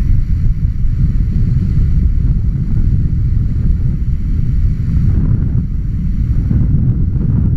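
Wind buffeting the microphone of a camera on a paraglider in flight: a loud, steady low rushing rumble.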